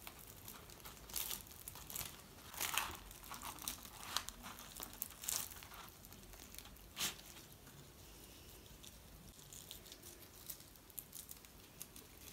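A crisp, puffed bhatura (deep-fried bread) torn apart by hand: a run of sharp crackling tears, thickest in the first seven seconds, then only a few faint crackles.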